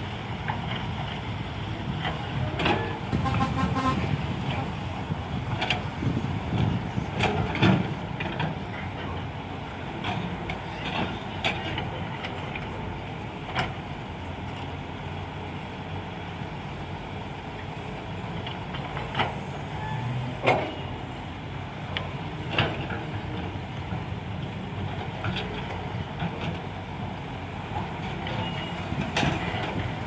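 Diesel engines of Cat 320C hydraulic excavators and dump trucks running steadily, with scattered clanks and thuds as soil and rocks are dropped from the bucket into a truck's steel bed.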